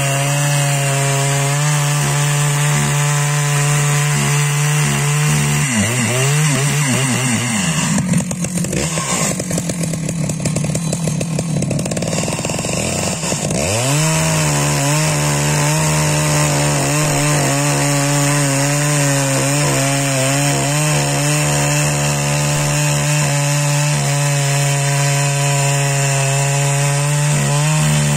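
Large two-stroke Husqvarna chainsaw running at high revs, cutting through beech logs. About six seconds in, the engine note drops and wavers and turns rough for several seconds, then climbs back to a steady high pitch for the rest of the cut.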